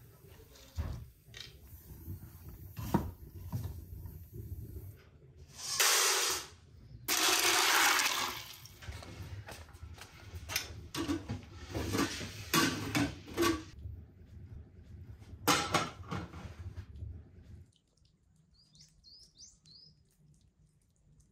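Water rushing and sloshing over corn kernels in an aluminium pot, in two loud pours, followed by a run of metallic clanks and knocks as aluminium pots are handled on a wood stove. Near the end it goes quiet, with a few faint bird chirps.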